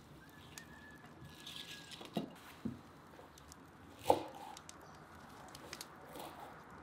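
A few light knocks of a knife and hands on a wooden cutting board, with the soft rustle of a bunch of fresh cilantro being handled. The loudest knock comes about four seconds in, with a short ring.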